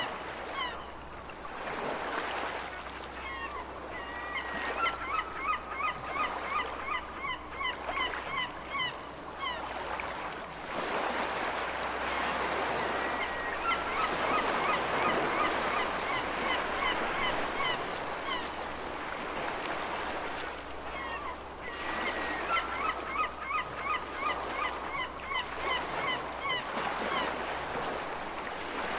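Seagulls calling in three long runs of quick, repeated short cries over a steady wash of ocean waves.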